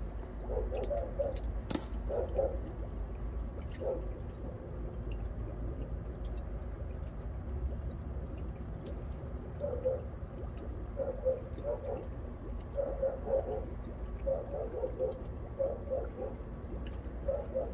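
Water gurgling and trickling in short bursts over a low steady rumble, with a sharp click about two seconds in.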